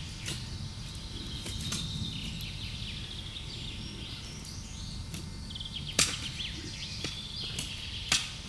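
Sharp clicks and knocks of a small hand pick digging into stony soil, several scattered through, the loudest about six seconds in and again near the end. Faint high chirping throughout.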